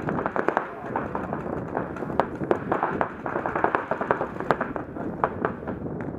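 Paintball markers firing in rapid, irregular strings of sharp pops.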